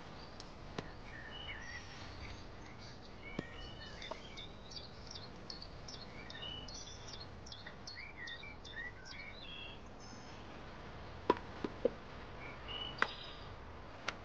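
Small birds chirping over a faint, steady outdoor background, with a few sharp clicks about three-quarters of the way through.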